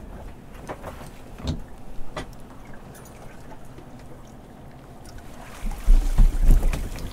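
Lobster pot hauled up by hand on its rope over the side of a small boat: a few light knocks at first over a low steady hum, then loud low thumps with water in the last second and a half as the pot comes out of the sea and bumps against the hull.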